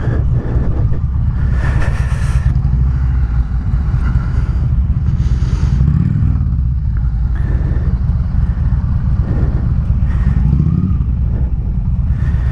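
Harley-Davidson Electra Glide's V-twin engine running steadily at low revs while the bike is rolled into a parking spot, with two brief rushes of noise about two and five seconds in.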